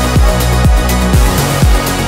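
Electronic dance music with a steady kick drum beating about twice a second under sustained synth tones.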